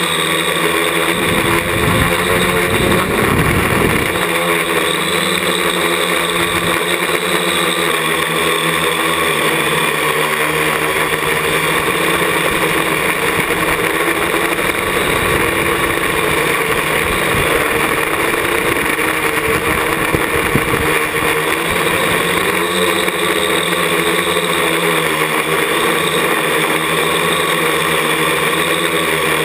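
Parallax ELEV-8 quadcopter's four brushless motors and propellers whirring, heard from a camera mounted on its frame; the pitch of the motor whine drifts up and down as the throttle changes in flight. Gusty low buffeting on the microphone comes and goes.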